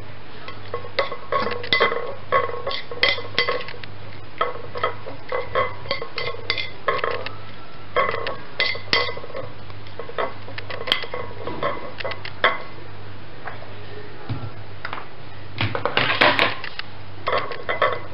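Table knife scraping and clinking against a ceramic plate in quick, irregular strokes as an oily herb marinade is stirred, with a denser flurry near the end. A steady low hum runs underneath.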